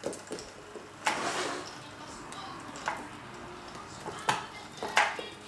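Cats' paws landing and scrabbling on a plank floor as they pounce and bat at a fluttering toy butterfly: about five sharp knocks, one followed by a short scuffle, the loudest near the end.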